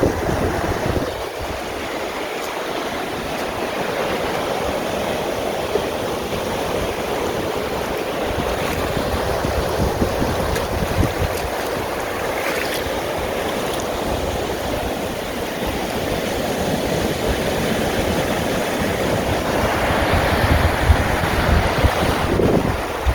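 Sea waves washing on the shore: a steady rush of surf that swells louder near the end.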